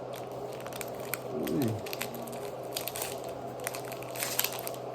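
Foil trading-card booster pack wrapper crinkling and cards being handled, scattered small clicks and crackles, with a brief falling sound about a second and a half in.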